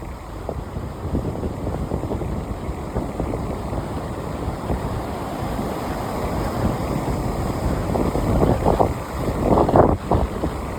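Sea waves breaking and washing on the shore, with wind buffeting the microphone. Two louder surges come near the end.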